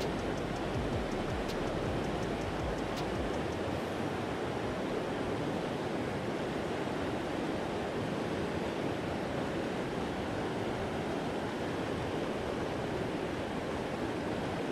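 Steady, unbroken rush of the Chattooga River's flowing water.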